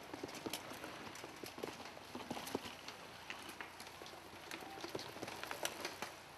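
Mountain bikes riding past on a dirt forest trail, with an irregular scatter of clicks, knocks and crackles from tyres and bikes over the leaf-littered ground.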